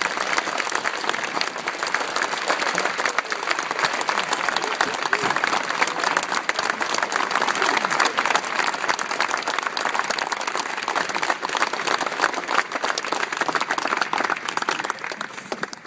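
Large banquet audience applauding, a dense, steady round of clapping.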